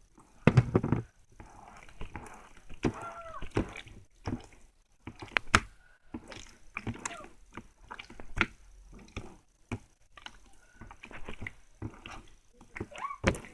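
Slime squished and kneaded by hand: irregular wet clicks and pops as air pockets burst, with a few short squeaks.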